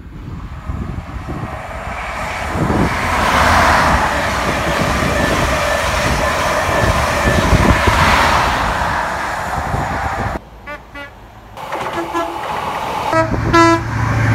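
A train passing at speed: a loud rushing noise that swells twice and then cuts off abruptly about ten seconds in. After that, a train horn gives several short blasts at two pitches, the loudest near the end.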